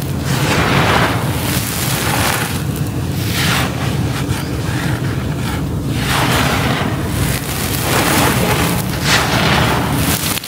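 Hands crushing and scraping gritty charcoal crumbs against a hard floor: a continuous crunchy, gravelly grinding that surges with each push, about every second or two.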